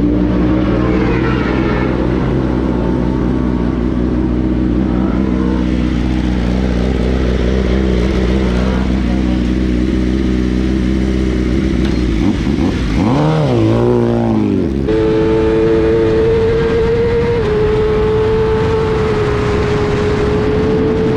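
BMW M1000RR superbike's inline-four engine idling steadily at first. About twelve seconds in it is blipped up and down in quick revs, then it is held at high revs at speed, dipping slightly in pitch later on.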